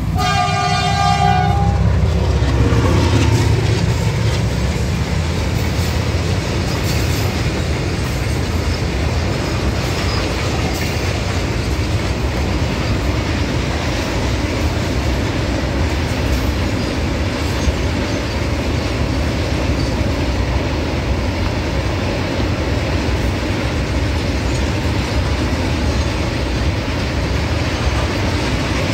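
Indian Railways WDP4D diesel locomotive passing at speed, its horn ending about a second in and its EMD two-stroke diesel engine running loudest over the next few seconds. A long train of tank wagons then rolls steadily past with the clatter of wheels on the rails.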